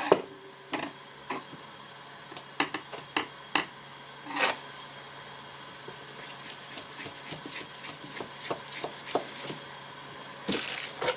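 Small parts being handled on a workbench: a string of sharp clicks and knocks, then a quicker run of light ticks, and a cluster of louder knocks near the end, over a steady low hum.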